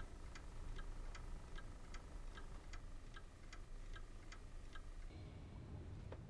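Clock ticking steadily and faintly, about two and a half ticks a second. About five seconds in the ticking stops and a low steady rumble takes over.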